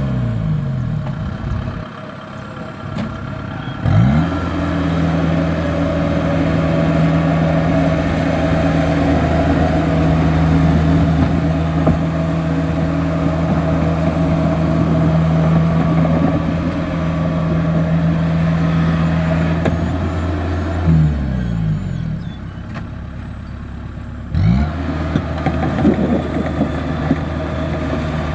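Kubota tracked rice combine harvester's diesel engine working as the machine crawls through mud. Its pitch drops at the start, rises again about four seconds in and holds steady, then drops a second time about three-quarters of the way through before picking back up a few seconds later.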